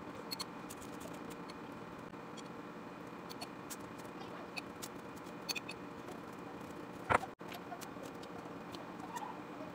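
Metal spoon clicking and scraping as pizza sauce is spread from a glass jar onto English muffin halves, scattered small ticks over a steady low hum. About seven seconds in there is one louder knock as the jar is set down on the counter.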